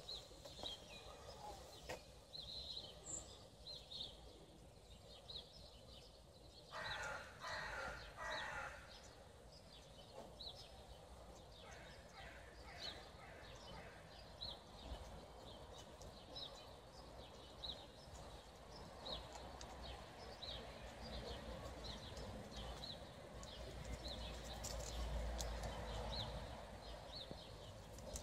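Faint outdoor ambience of small birds chirping over and over, with three louder calls about seven seconds in. A low rumble swells near the end.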